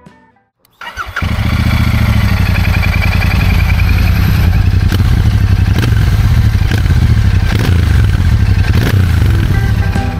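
Royal Enfield Shotgun 650's 648 cc parallel-twin engine starting about a second in, then running steadily with a deep, even exhaust note.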